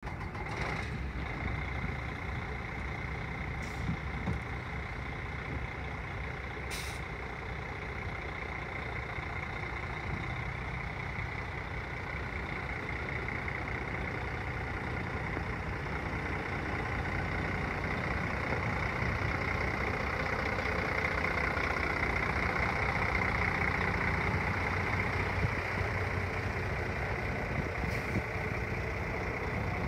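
Freightliner truck tractor's diesel engine idling steadily, growing gradually louder through the middle, with a few brief clicks.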